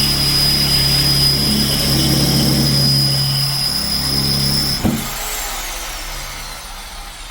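Corded electric drill running at steady full speed with a high whine, drilling steel with an HSS bit and coolant oil. About five seconds in, the trigger is released with a click and the motor winds down with a falling whine.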